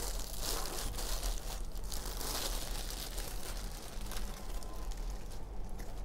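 Thin clear plastic sleeve crinkling and rustling as it is pulled off a flat metal award plaque. The crinkling stops near the end.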